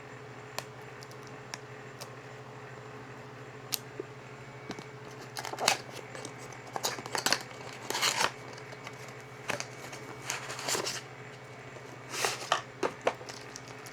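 Plastic packaging crinkling and tearing in irregular bursts, after a few sharp clicks: a UV ink cartridge being unwrapped.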